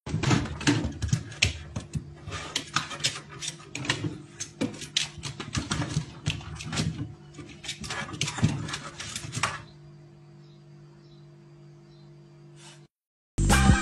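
Husky puppy's claws and body knocking on the plastic shelves and drawers of an open refrigerator as it climbs in: rapid, irregular clicks and knocks over a steady low hum. After about nine and a half seconds the knocking stops and only the faint hum remains.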